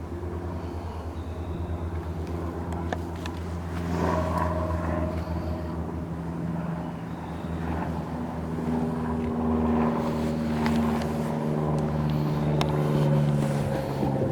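A motor vehicle engine running, with a low steady throb; its tone shifts around four and eight seconds in.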